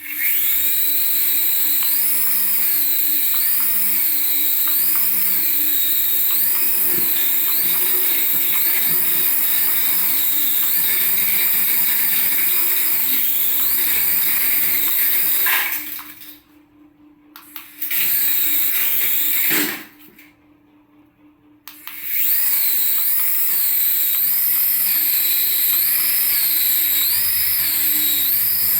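Small electric motor of a toy remote-control vehicle running with a high-pitched whine whose pitch wavers up and down about once a second. It cuts out twice, briefly, a little past halfway.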